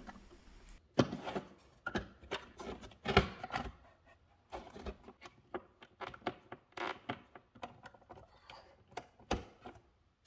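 Irregular clicks and knocks of an electrical box being pushed into a drywall cutout and its mounting screws turned with a hand screwdriver.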